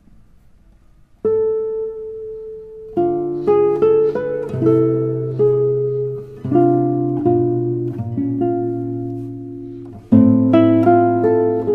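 Solo classical guitar: after a short quiet pause, a single note rings out about a second in, then plucked notes and chords follow, with a loud chord near the end.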